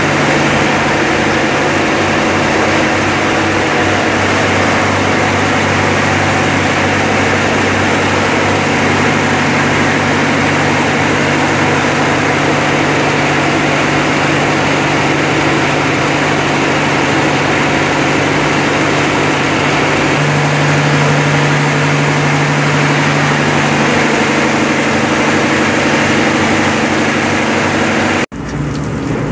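Marine diesel engines running in a ship's engine room: a loud, steady drone with a deep hum, which grows stronger for a few seconds about twenty seconds in. The engines run to hold the anchored landing craft against strong wind and current. Near the end the sound cuts abruptly to heavy rain.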